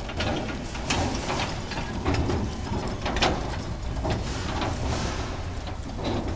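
Empty four-wheel steel flatbed trailer rolling over interlocking paving stones behind a tow tractor: a steady rumble with irregular knocks and rattles from the trailer.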